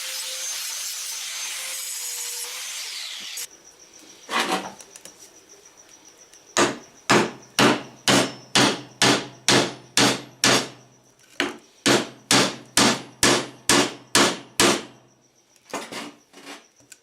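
A power tool runs steadily and cuts off about three seconds in. After a pause, about seventeen hammer blows come, roughly two a second, with a short break midway, driving the steel screwdriver shank into a hole drilled in a hardwood block.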